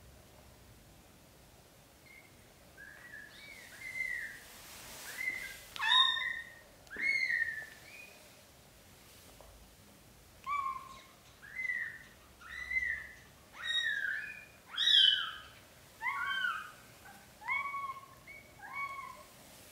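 Newborn British shorthair kittens mewing: a string of short, high-pitched cries, about a dozen and a half, beginning a couple of seconds in, some overlapping as more than one kitten calls.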